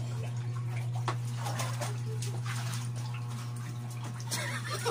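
Water splashing and running in a plastic basin, over a steady low hum.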